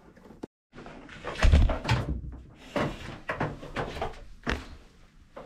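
Handling noise: a string of knocks and scrapes against wooden boat panelling as an electrical cable is pulled out and rerouted.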